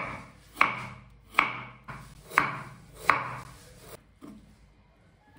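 Kitchen knife chopping carrot on a wooden cutting board: about six sharp chops, one every half-second to second, then a few lighter taps near the end.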